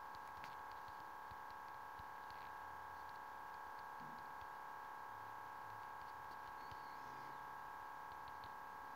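Faint steady electrical hum made of several fixed tones, with scattered faint ticks of fingers tapping on a phone's touchscreen keyboard.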